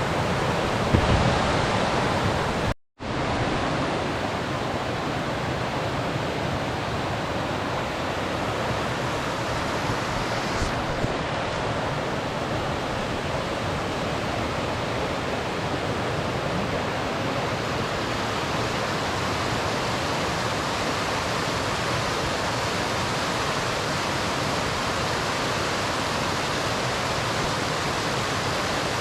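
Mountain stream water rushing steadily. The sound cuts out for a split second about three seconds in, then carries on unchanged.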